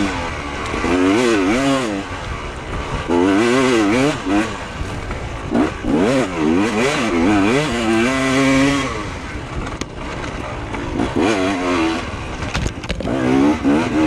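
Off-road motorcycle engine revving up and falling back again and again as the rider works the throttle up a rough dirt trail. There are a few sharp knocks near the end.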